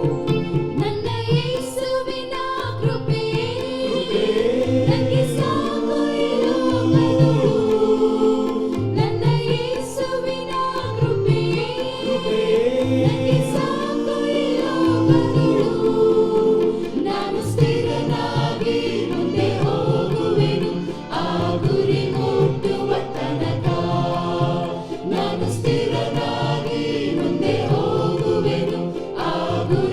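Music with a choir singing over instrumental accompaniment.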